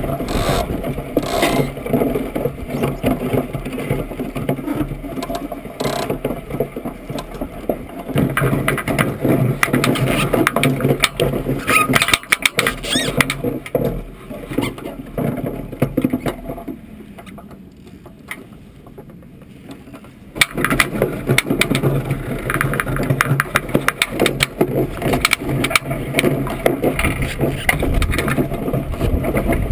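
Iceboat sailing over lake ice: a continuous rough rumble of the runners on the ice, with the boat's frame and fittings rattling in many sharp clicks. The noise drops away for a few seconds past the middle, then comes back suddenly.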